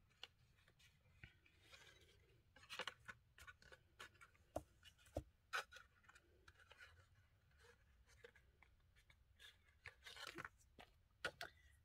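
Faint, sparse rustling and light taps of a cardstock paper box being handled, with a bone folder pulled out and laid down on the table partway through.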